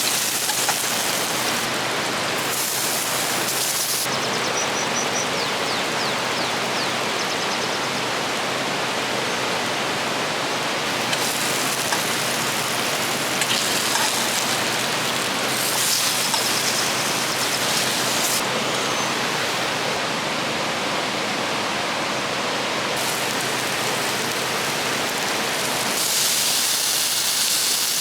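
River water flowing: a steady, full rush of running water.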